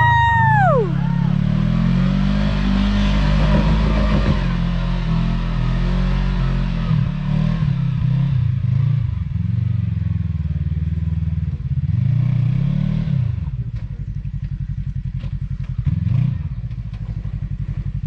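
Side-by-side UTV engine revving up and down in repeated bursts while crawling over rock ledges. A brief high tone swoops up and down at the start, and the engine settles to a steadier low pulse near the end.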